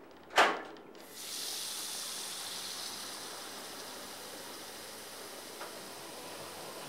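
A sharp knock, then a kitchen tap turned on and running steadily, water rushing into the sink and slowly easing off.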